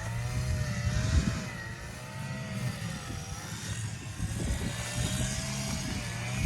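Petrol string trimmer's small two-stroke engine running, its pitch wavering gently up and down as the throttle and load change.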